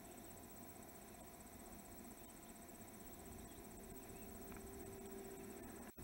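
Faint outdoor ambience with a high-pitched, rapidly pulsing insect trill that cuts off near the end.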